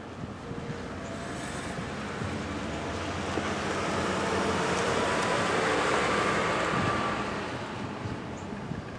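American Signal T-135 AC/DC outdoor warning siren sounding faintly through a wash of wind noise. Its tone swells to its loudest about six seconds in and then fades again.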